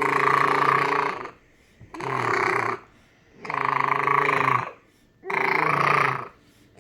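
A baby making a repeated low-pitched vocal noise, each about a second long with a short pause in between, four times over and starting a fifth at the end.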